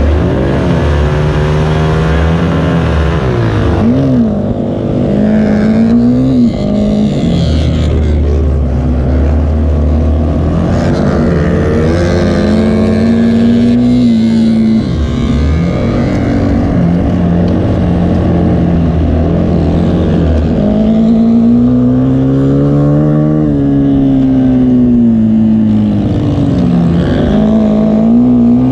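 Several race car engines running at once, their pitch rising and falling over and over as they accelerate and lift off around the track.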